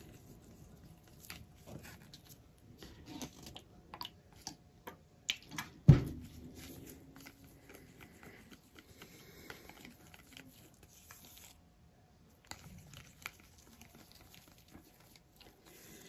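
Scattered soft clicks and scrapes of a plastic stirring stick in a cup of metallic gold acrylic paint, with one sharp knock about six seconds in.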